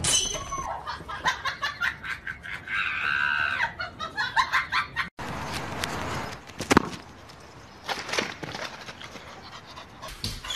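A dog panting quickly, with a short drawn-out vocal call about three seconds in; after a cut, a single sharp knock.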